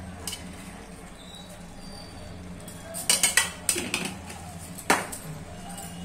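Sharp clinks and knocks of a steel spoon against a kadai: a quick cluster about three seconds in and a single sharp knock near five seconds, over a steady low hum.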